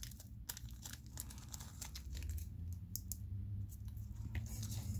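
Crinkling and rustling of a small plastic bag of screws being opened and rummaged through, with scattered light clicks.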